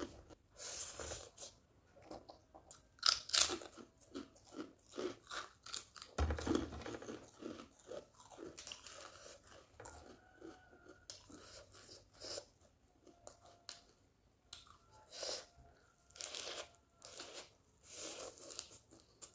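Close-up eating sounds: irregular crunches and chewing as a person bites into fresh lettuce leaves wrapped around noodles. There is a dull low thump about six seconds in.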